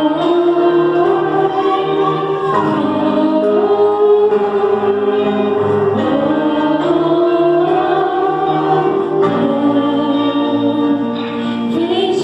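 Gospel band playing with a choir singing long held notes over keyboard chords.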